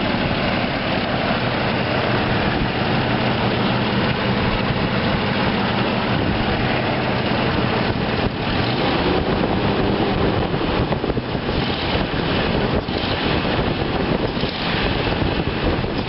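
1993 Jeep Grand Cherokee engine idling steadily, its exhaust still leaking a little through a cracked exhaust header.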